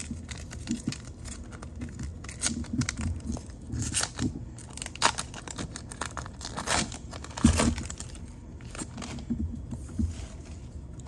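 Foil wrapper of a 2021 Panini Prestige football card pack crinkling as it is handled and torn open, a run of irregular crackles.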